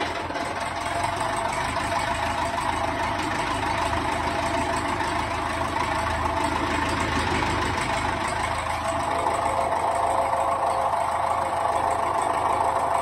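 Tractor engine idling steadily, a little louder in the last few seconds.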